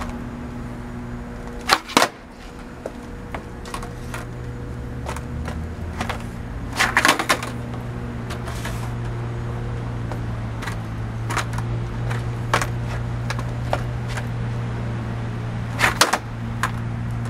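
Skateboard on concrete: tail pops and the board clattering down, in three loud clusters (about two seconds in, about seven seconds in, and near the end) with lighter taps in between, over a steady low hum.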